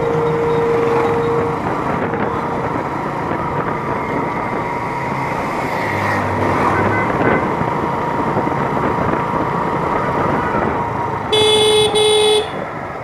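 Ride noise from a moving motorcycle in street traffic: steady engine, tyre and wind noise. A horn is held for the first second or so, and near the end come two short, loud horn honks.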